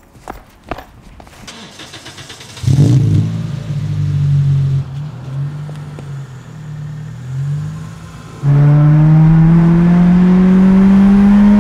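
A 2002 Toyota Celica's four-cylinder engine, breathing through an aftermarket cat-back exhaust, starts about two and a half seconds in and idles unevenly. Near the end it pulls hard under acceleration, its pitch rising steadily. A few faint knocks come first.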